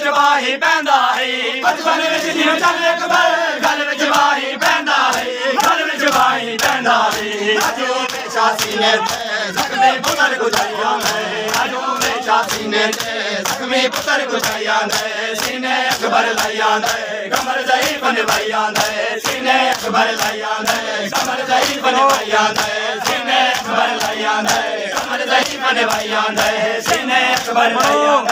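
A crowd of men chanting a mourning chant (nauha) in unison, with a steady, fast rhythm of sharp slaps from the mourners beating their bare chests in matam.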